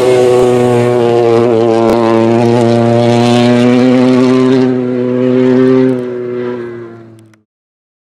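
Rally car engine running at a steady, held pitch, then fading out about seven seconds in.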